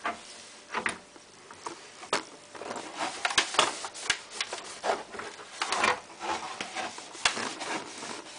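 A tea towel rubbing and wiping over a Samsung washing machine's outer casing: irregular swishing strokes with a few light knocks.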